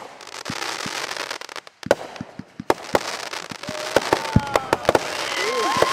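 Fireworks going off: a rapid string of sharp bangs over a crackling hiss, with several whistling fireworks starting near the end, their pitches gliding up and down.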